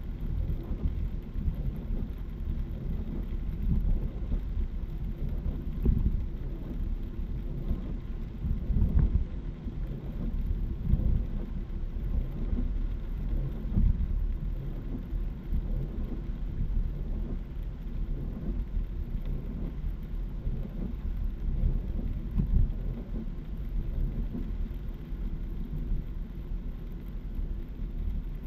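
Heavy rain drumming irregularly on a car's roof and windscreen, heard inside the cabin over the low rumble of tyres on a wet expressway.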